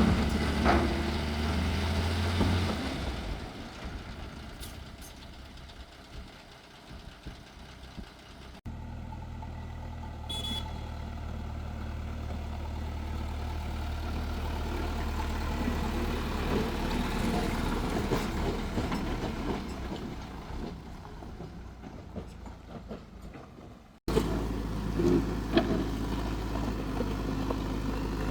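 JCB excavator's diesel engine running while it works, its steady low drone changing in level between clips. A brief high beep sounds about ten seconds in.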